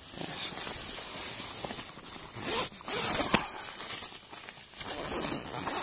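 Green nylon fabric of a Survival Aids bivvy bag rustling and crinkling as a hand pushes and pulls it, with a sharp click a little past halfway.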